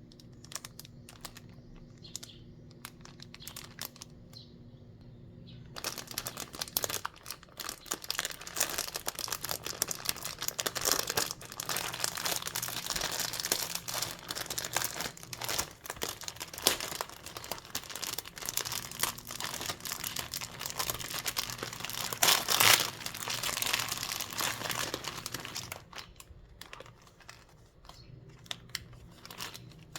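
Oreo cookie packaging being unwrapped and handled, with crinkling and tearing. A few light clicks come first, then about six seconds in a long stretch of continuous crinkling begins that is loudest a little before the end, before dying back to scattered clicks.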